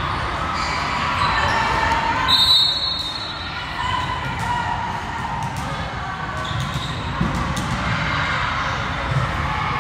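Echoing sports-hall ambience during a volleyball match: volleyballs bouncing and being struck on the hard court, with a murmur of voices. A brief high-pitched tone rises above it about two seconds in.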